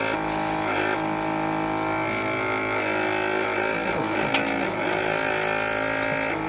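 Electric vacuum sealer's pump running with a steady hum, drawing the air out of a plastic bag before sealing.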